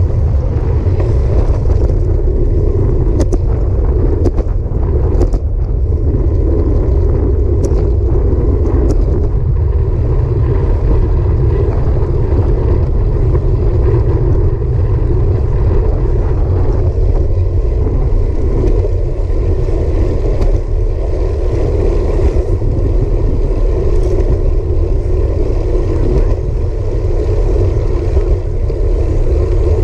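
Wind buffeting a handlebar-mounted action camera's microphone while cycling at about 16 to 18 mph on a concrete path: a loud, steady low roar. A few light clicks come between about three and nine seconds in.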